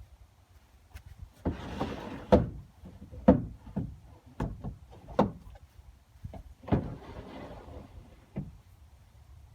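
Wooden bed drawers or boards in a pickup bed being slid and knocked about. There are two longer sliding scrapes, one about a second and a half in and one near seven seconds, with a string of sharp knocks between and around them.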